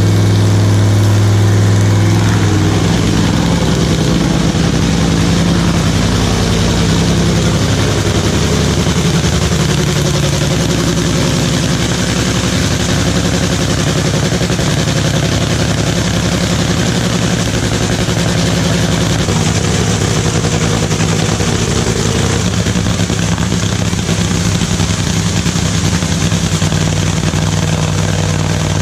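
Drag racing car's engine running loudly at a steady idle, its pitch settling after a slight shift in the first few seconds.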